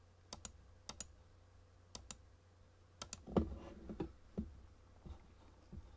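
Computer mouse clicking: a scattering of short, sharp clicks, several in close pairs, as menu entries are picked one after another.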